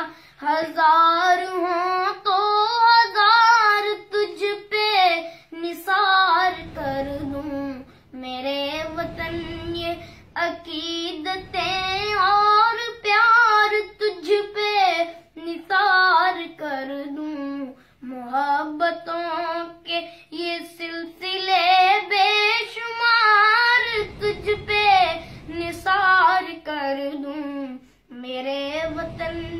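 A song with a high solo voice singing a flowing melody in long held notes that bend in pitch, phrase after phrase with short breaths between.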